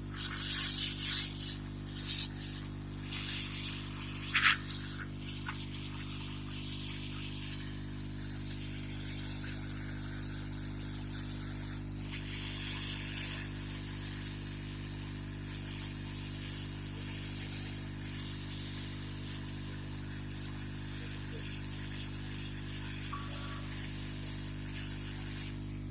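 Hot air from a rework gun hissing against a motherboard in several short bursts over the first five seconds or so, then a steady faint hiss over a constant electrical hum.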